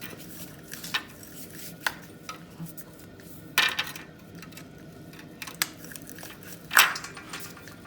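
Scattered metallic clinks and clatter of hand tools and engine parts, about six in all, as spark plug wires are worked off a Chevy 5.3 LS V8. A bigger rattle comes about three and a half seconds in, and the loudest clank comes near the end.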